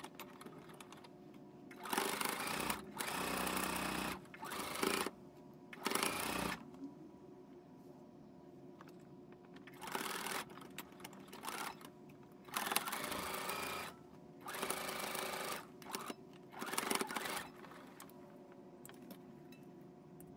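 Singer Quantum Stylist computerized sewing machine stitching a side seam through layered fabric in about eight short runs, each under a second to about a second long, with pauses between them. A faint steady hum carries on through the pauses.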